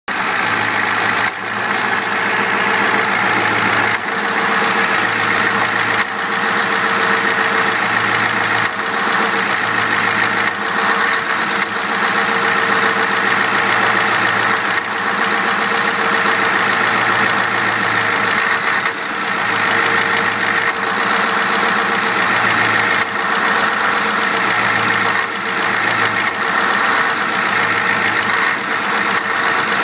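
Ford 7.3L IDI turbo diesel V8 running with an uneven, pulsing note and brief dips every few seconds. The owner takes these for misses and suspects bad injectors.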